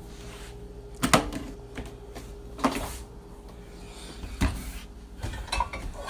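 Several separate knocks and clunks, about a second or more apart, with a quicker cluster near the end, over a faint steady hum: household handling sounds in a kitchen.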